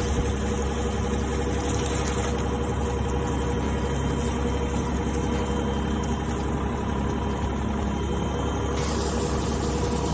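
Mitsubishi MM20CR mini excavator's diesel engine running steadily. A higher hiss joins in near the end.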